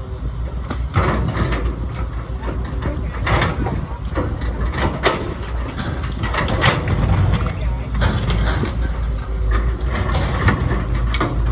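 Radio-controlled model construction machines working: a steady low motor hum with many irregular clicks, knocks and scrapes.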